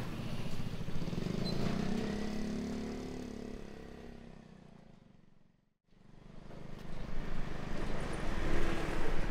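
Motor scooter engine running, its pitch rising and then falling, then fading away over about five seconds to a moment of silence. A noisy outdoor background then comes back up.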